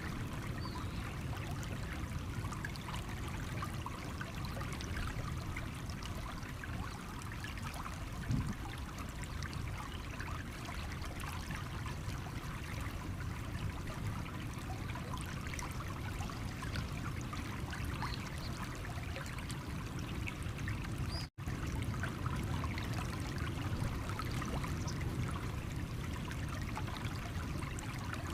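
Shallow stream running over stones, a steady rush with fine trickling and splashing. The sound cuts out for an instant about three-quarters of the way through.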